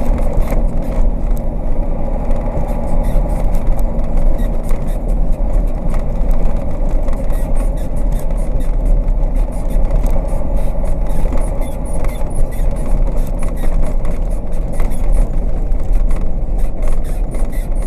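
KAMAZ tanker truck's diesel engine running under way, heard from inside the cab, with frequent knocks and rattles as the cab is shaken over a broken, rutted road.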